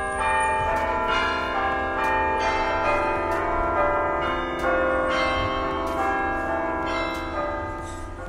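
Church bells ringing in a tower: several bells struck again and again, their ringing tones overlapping and hanging in the air, easing off near the end.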